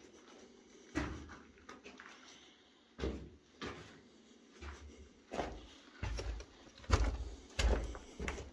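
Footsteps on a debris-strewn cellar floor: a string of irregular thuds and crunches that come closer together in the second half.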